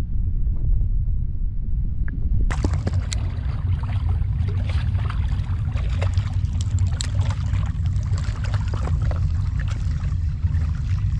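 Low wind rumble on the microphone, joined about two and a half seconds in by water splashing and lapping.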